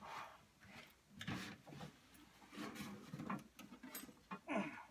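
Soft clicks and knocks of hands working the clips and hinges of a stuck vintage projector case, mixed with low murmurs and short grunts of effort.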